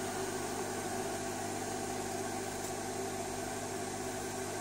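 Steady background hum made of a few even, unchanging tones over a light hiss, like a machine or electrical hum running in the room.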